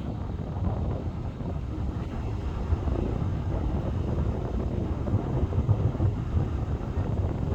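Wind buffeting the microphone: a steady, gusty low rumble without any clear tone.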